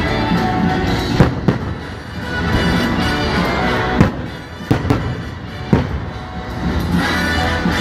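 Aerial firework shells bursting with about six sharp bangs, the loudest just over a second in, over music playing steadily underneath.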